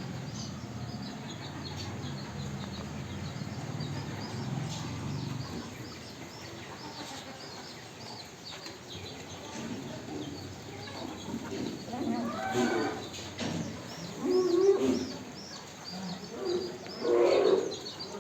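Barbari goats bleating, a few loud calls in the second half, over steady small-bird chirping.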